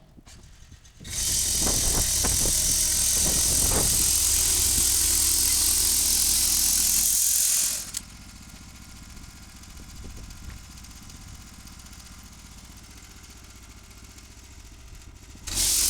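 Sawmill running and cutting a spruce beam. A loud, hissing cut starts about a second in and stops after about seven seconds, then the mill runs more quietly until the loud cutting starts again near the end.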